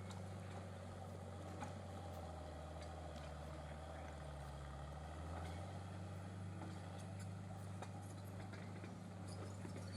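Diesel engine of a Cat Drott tracked loader running steadily; its pitch drops for about three seconds from two seconds in, then comes back up.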